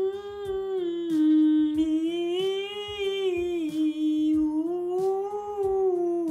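A woman's voice singing the alto vocal warm-up "mm-mi-ou" on one long breath, the pitch rising and falling in smooth arcs. Its brightness changes as it moves between the hummed "mm" and the open vowels.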